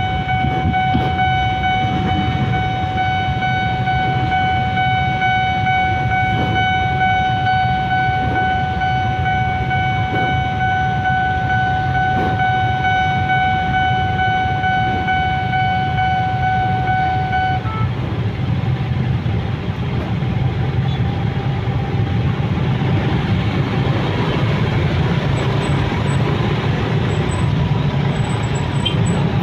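Railway level-crossing warning signal sounding one steady high tone over the low rumble of idling motorcycle and car engines. The signal cuts off suddenly about 17 seconds in, leaving the engine rumble.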